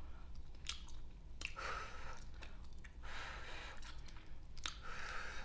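Gum chewing and smacking close to the microphone: scattered wet clicks and pops, with a few short breathy hisses.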